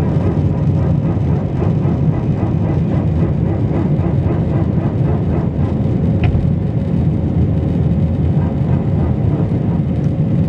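Airliner cabin noise during the climb just after takeoff: the jet engines and the rushing air make a steady low rumble with a faint steady hum over it.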